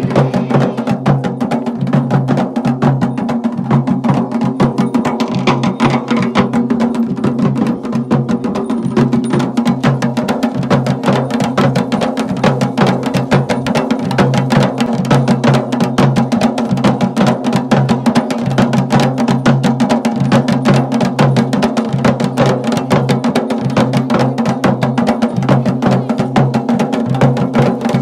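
Traditional Garhwali dhol and damau drums played together in a fast, unbroken rhythm, with the deep drum tones pulsing in a regular repeating pattern.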